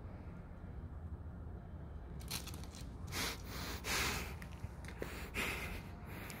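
A handful of short scraping, rustling noises close to the microphone over a low steady rumble, starting about two seconds in and stopping shortly before the end.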